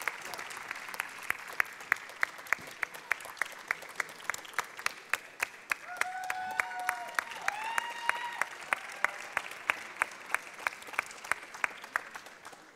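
Audience applauding, the clapping falling into an even rhythm of about three claps a second. A voice calls out briefly over it in the middle.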